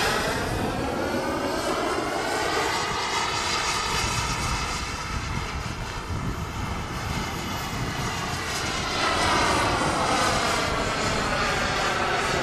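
Radio-controlled model jet flying past, its engine a steady rushing whine that sweeps in pitch as it passes. It swells again as the jet comes close about nine seconds in.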